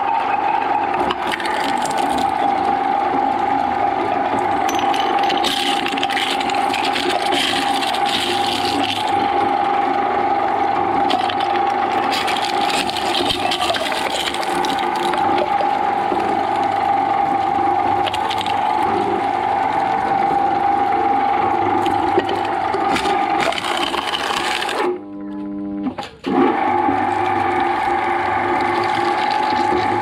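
Twin-shaft shredder running with a steady high whine as its cutter blades crush tin cans and other objects, with crunching and scraping over the top. The sound breaks off briefly about 25 seconds in.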